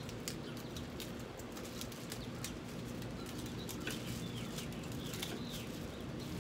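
Crinkling and rustling of packing material being pulled off a lawn mower's handle: a scatter of sharp crackles over a steady low hum.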